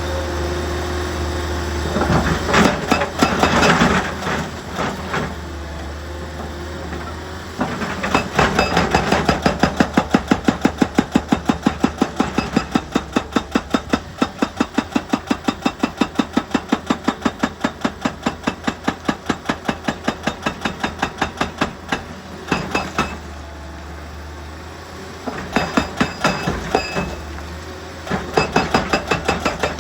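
Heavy machinery at a rock quarry: a diesel engine running steadily under a fast, even pounding of about five blows a second with metallic clanks. The pounding starts about eight seconds in, runs for some fifteen seconds, and comes back near the end, with a shorter burst of clattering a few seconds in.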